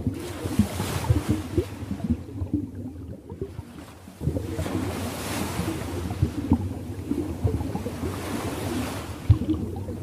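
Ocean waves washing in and out, swelling and fading every few seconds over a low rumble of moving water.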